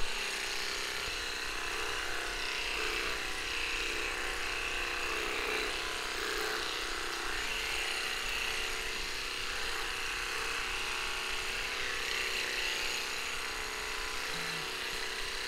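Cordless electric pet clippers switched on with a sudden start, then running with a steady buzz as they trim a small dog's coat.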